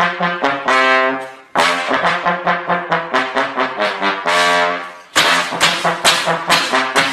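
Brass music: a fast run of short, punchy brass notes, broken twice by a held note that fades out before the phrase starts again.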